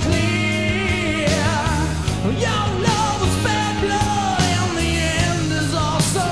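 Hard rock/heavy metal band recording: guitar, bass and drums playing together at full level, with a high lead melody that wavers and bends in pitch.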